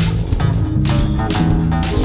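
Background music with guitar, a bass line and a steady beat.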